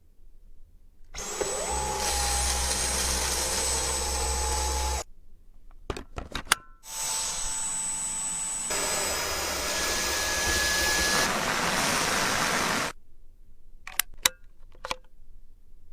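Dyson vacuum cleaner motor running with a steady rush of air and a high whine, in two spells of several seconds that each cut off abruptly. The first starts about a second in with a quickly rising whine. A few sharp clicks and knocks come between the spells and after the second.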